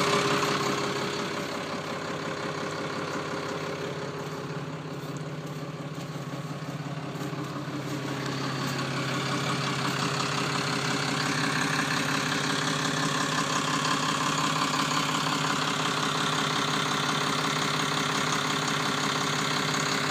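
Caterpillar D3C Series III Hystat crawler dozer's diesel engine idling steadily. It is louder at the start, eases off over the first couple of seconds, and grows louder again from about eight to ten seconds in.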